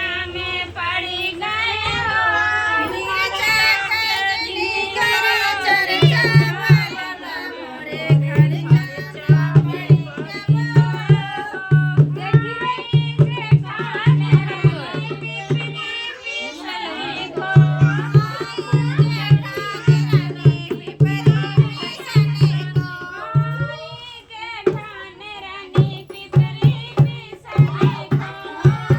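Music: a song with singing over a steady, repeating low hand-drum beat.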